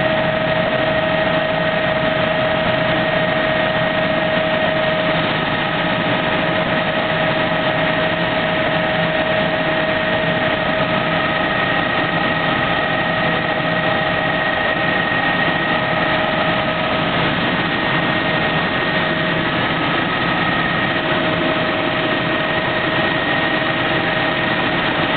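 Helicopter in flight heard from inside the cabin: a steady, loud mix of engine and rotor noise with a few constant high tones running through it.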